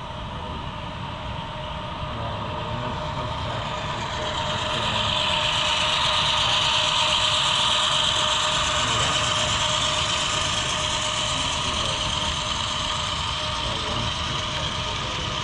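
HO scale model train running on the layout, its sound-equipped diesel locomotive giving a steady engine hum. The sound swells to its loudest about halfway through, then eases off a little.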